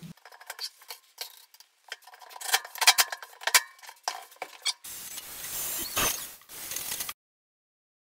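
Clinks and clatter of stainless-steel benches being handled and fitted, then a cordless drill running for about two seconds, cutting off suddenly.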